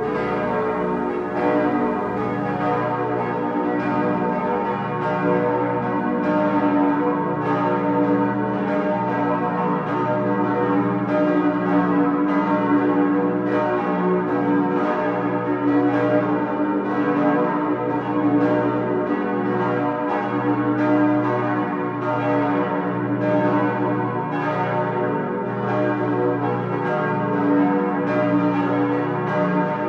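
Several church bells ringing together in a continuous peal from a brick bell tower, their strikes overlapping at about two a second with a long hum between them.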